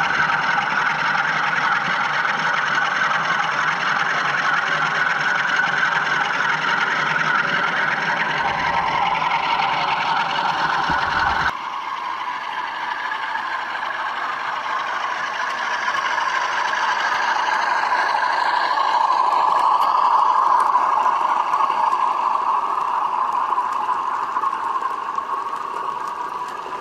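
Model freight train running on OO-gauge layout track: wheels rattling over the rails and the locomotive's motor whirring, a steady mechanical clatter. After a sudden change about a third of the way in, it grows louder as a Bachmann Class 47 and its loaded hopper wagons approach and pass, then fades.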